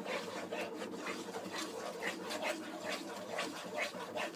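Spoon stirring thick chutney in a metal pan: a run of short scraping strokes, several a second.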